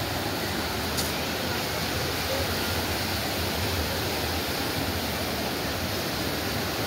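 Steady rushing of a brown, swollen river running high after heavy rain, with one sharp click about a second in.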